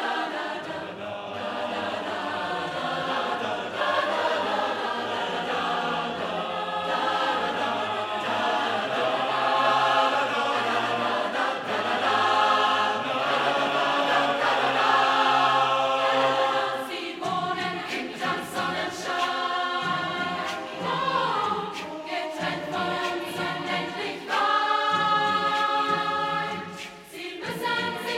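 Large mixed choir of women's and men's voices singing in full harmony. It holds long, sustained chords for about the first seventeen seconds, then moves into shorter, more rhythmic clipped notes.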